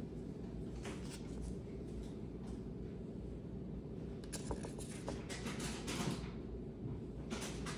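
Quiet indoor room tone with a steady low hum, broken by a few faint rustles and soft clicks of light handling, a cluster of them in the middle and another near the end.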